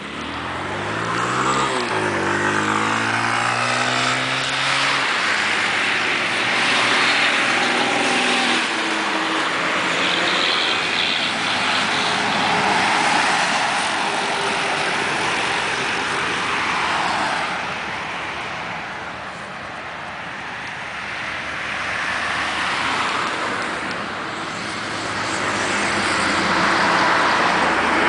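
Road traffic passing close by: a heavy truck's engine rises in pitch as it pulls away in the first few seconds, then engine and tyre noise swells and fades as further trucks and cars go by.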